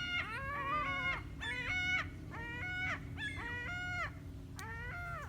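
Several seagulls squawking as they fight over food being thrown to them. It is a run of harsh, overlapping calls, about one a second, many sliding down in pitch at the end.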